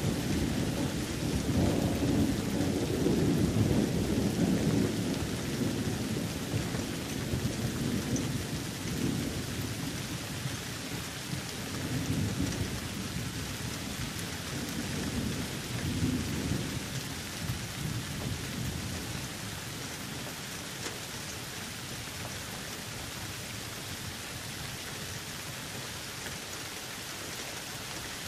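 Steady rain with rolling thunder. The low rumble is heaviest over the first few seconds, swells again twice about halfway through, then dies away, leaving rain alone for the last third.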